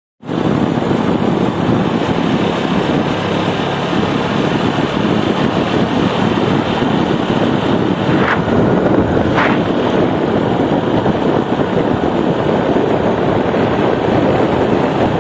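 Wind rushing over the microphone of a moving motorcycle, with road and engine noise underneath. Two brief higher chirps sound about a second apart past the middle.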